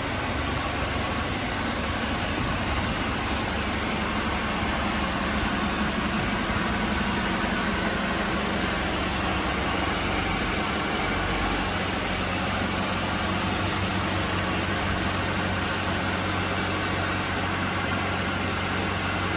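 A vehicle engine idling steadily, with a steady high-pitched whine above it.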